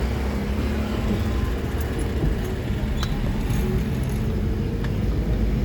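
Steady low rumble of a motor vehicle running, with a few faint clicks and no horn sounding.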